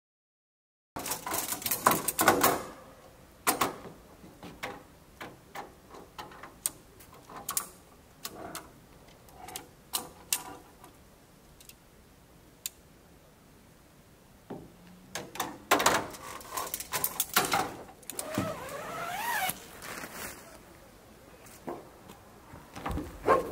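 Snow Peak Amenity Dome tent being pitched: nylon tent fabric rustling and the aluminium tent poles clicking and knocking as they are handled, in irregular bursts that start about a second in.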